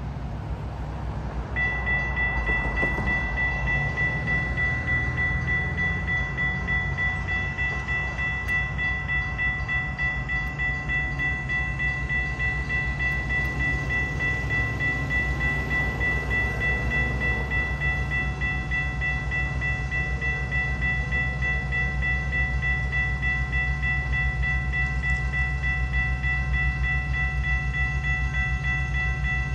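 Railroad crossing warning bell starts about a second and a half in and rings steadily without a break, signalling that the crossing is activated for an approaching train. A steady low rumble runs underneath.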